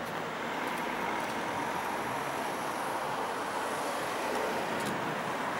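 Steady road traffic noise from cars crossing the bridge.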